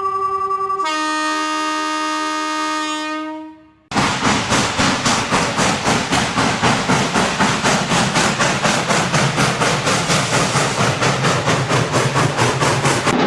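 Train horn sounding a steady chord that steps down to a lower chord and fades out, followed by a train's wheels clattering over rail joints in a fast, even clickety-clack of about four clicks a second.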